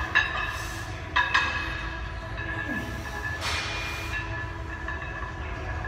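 Gym room noise: a steady low hum with faint held high tones, and a few sharp clicks near the start.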